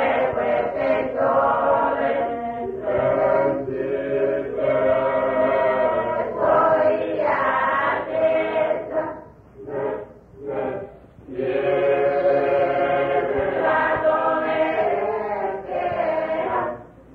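A group of voices singing together in a chant-like, choir style, holding long notes, with two short breaks a little past the middle.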